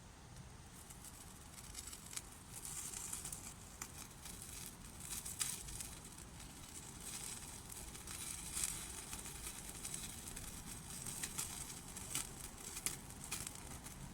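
Small wood fire burning, with irregular sharp crackles and a light hiss.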